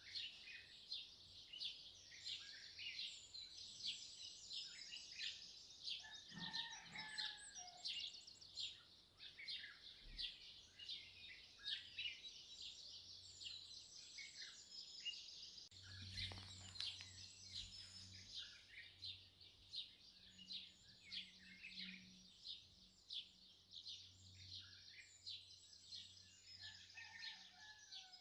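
Faint chorus of many small birds chirping steadily, the calls quick and overlapping, over a faint low hum.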